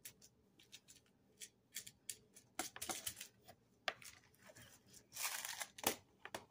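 Hands sliding and folding a flexible pale green item on a wooden tabletop: scattered light taps and rustles, with a longer rustle about five seconds in.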